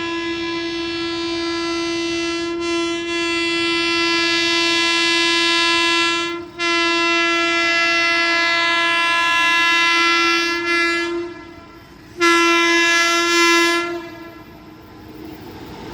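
Horn of a WAP7 electric locomotive blowing three long blasts. The first two run almost back to back for about six and five seconds, and a shorter third follows about a second later. A quieter train rumble takes over after the last blast and grows toward the end.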